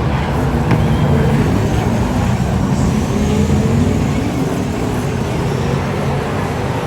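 Speedway race car engines running on the track, their pitch rising and falling as they rev and ease off.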